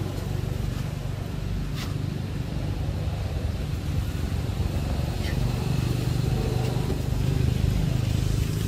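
A steady low engine rumble, with a couple of faint short chirps over it.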